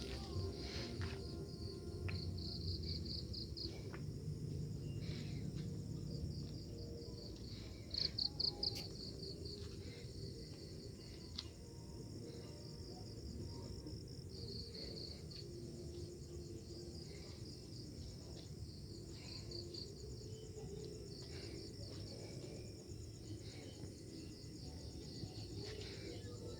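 Night insects, crickets, chirping in short pulsed trills that come and go, loudest about eight seconds in, over a steady low rumble.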